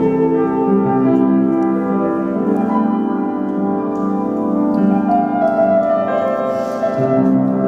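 Slow music on a keyboard instrument: long held chords that change every second or two.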